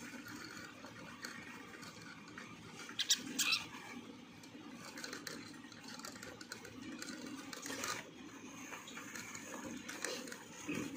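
Dwarf hamster pups drinking together from a water bottle's metal sipper tube and shuffling in wood-shaving bedding: soft, low rustling with a few sharp clicks, the loudest about three seconds in.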